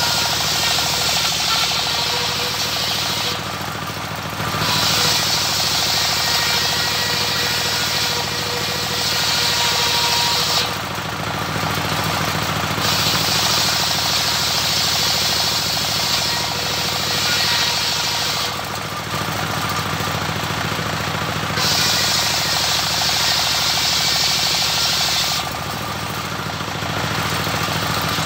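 Homemade engine-driven circular sawmill ripping waru (sea hibiscus) timber. The engine runs steadily throughout while the blade's loud hiss of cutting wood comes in four long passes, each several seconds. Between passes it drops away for a second or two to just the engine and the spinning blade.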